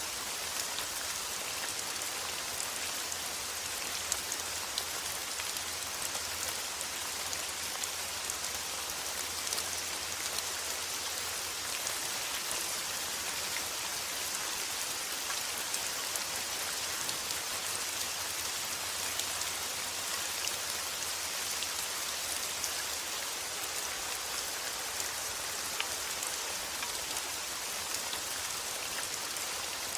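Steady heavy rain falling, an even hiss with scattered sharper drop hits.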